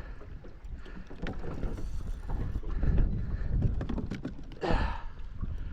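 Fishing reel being worked during a fight with a hooked fish on light 15-pound line: scattered mechanical clicks and ticks, thickest near the end, over a steady low rumble of wind on the microphone and water around the boat. A short falling squeak comes near the end.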